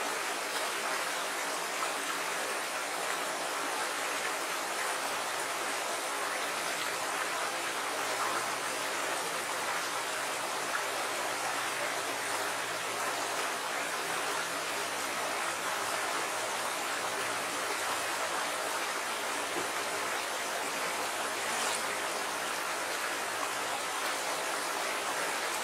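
A shallow, rocky stream flowing steadily, water rushing over and around stones.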